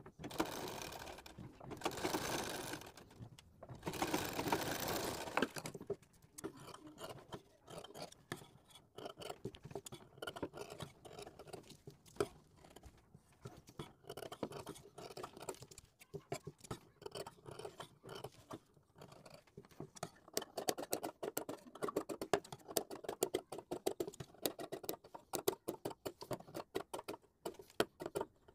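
A sewing machine stitches briefly in the first few seconds. Then scissors snip through fabric over and over, in quick runs of snips in the second half, trimming the seam allowance around a stitched neckline and clipping small cuts into it.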